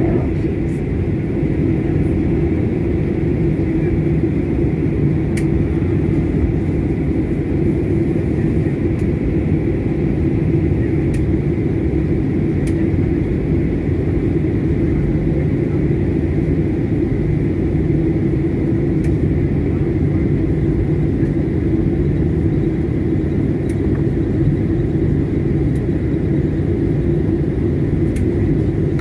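Cabin noise of a Boeing 737 MAX 9 taxiing, heard from inside the cabin: its CFM LEAP-1B engines at low taxi power as a steady rumble with a low hum. A few faint clicks come through now and then.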